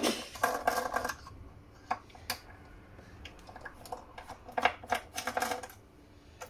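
Small metal parts and a screwdriver being handled inside a radar scanner's metal housing: scattered clicks and clinks, with two short stretches of scraping and clattering near the start and again about two-thirds of the way through.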